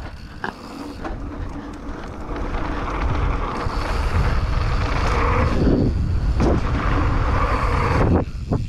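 Wind rushing over the microphone and mountain bike tyres rumbling over a dirt trail, getting louder over the first few seconds as the bike picks up speed, with a few knocks from bumps in the trail.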